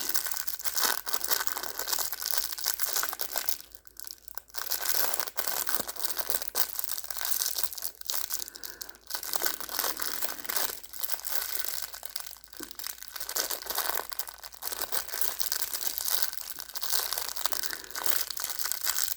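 Packaging crinkling and tearing as it is opened by hand: a long run of dense crackling and ripping with short pauses.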